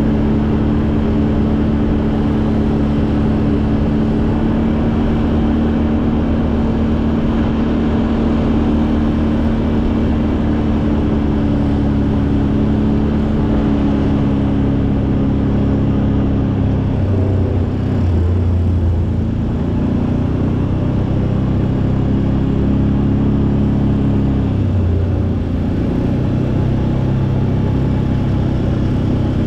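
ATV engine running steadily under way. Its note drops briefly about two-thirds of the way in and again near the end, then picks back up.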